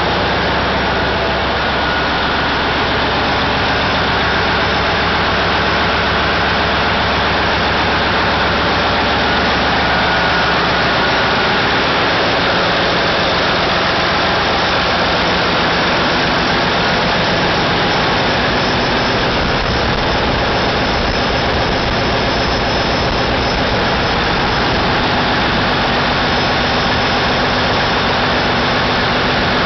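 Caterpillar 3606 inline six-cylinder diesel engines running in the engine room, a loud steady drone.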